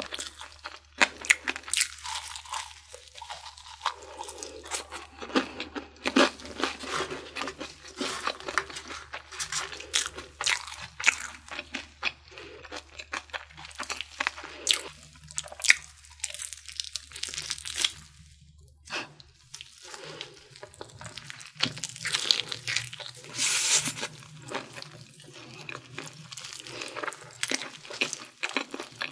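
Crunching and chewing of Korean fried chicken, with many sharp crackles of the fried crust being bitten. There is a short lull about two-thirds of the way through.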